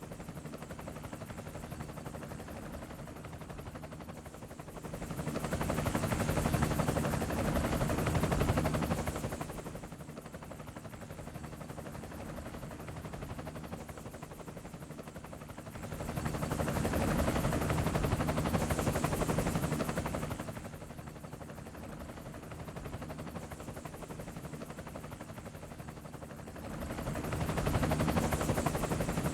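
Steady rumbling noise with a low hum from a cinematic sound effect, swelling louder and fading back three times, about every eleven seconds.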